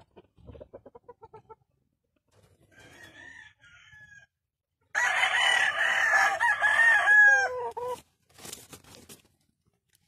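A rooster crows once, a loud, long crow of about three seconds that begins about halfway through and falls in pitch at the end, with softer short clucks before it.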